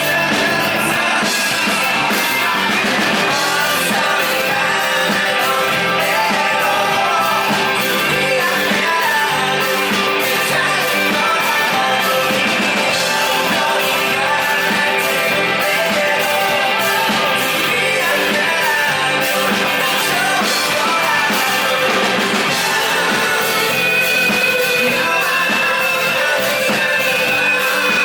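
A rock band playing live, with singing over electric guitar, bass and a steady drum beat, heard through a concert hall's PA.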